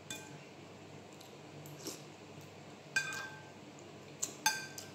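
Metal spoon clinking against a ceramic soup bowl while scooping soup: several light, ringing clinks, one about three seconds in and a quick cluster of three near the end.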